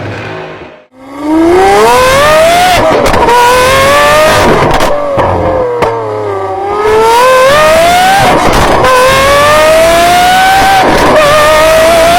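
Naturally aspirated V12 supercar engine under hard acceleration, coming in loud after a brief gap about a second in. Its pitch climbs steadily and drops back at each upshift, several times. In the middle it eases off and the pitch falls before it pulls up through the gears again.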